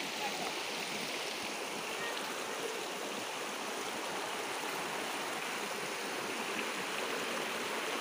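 Mountain stream rushing steadily over the lip of a waterfall.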